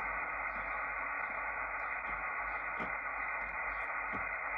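Kenwood TS-440S HF transceiver giving steady static hiss, with no stations coming through, as it is tuned down the 10-metre band in upper sideband, with a few faint clicks. The band is empty because a geomagnetic storm has blacked out the higher HF bands.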